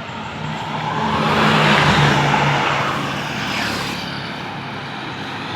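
A large road vehicle passing close by: engine hum and tyre noise swell to a peak about two seconds in, then fade away.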